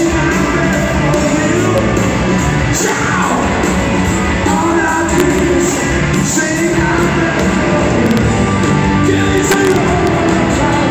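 Rock band playing live in an arena, with electric guitars, bass and drums and a sung lead vocal, loud and steady, with the echo of a large hall.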